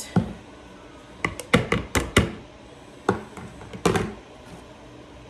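A metal mesh strainer and spatula knocking and tapping against a plastic bucket while the lye solution is being strained into the oils: one knock, then a quick run of about six sharp taps, then two more.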